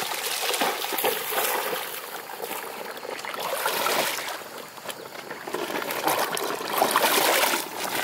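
Shallow floodwater splashing and trickling as someone wades through it and works with their hands in the water, swelling and fading unevenly.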